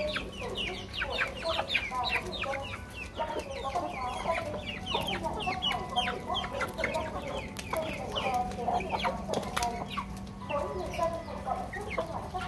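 A flock of chickens feeding, clucking and calling over one another in a steady chatter of short falling calls, with scattered sharp clicks.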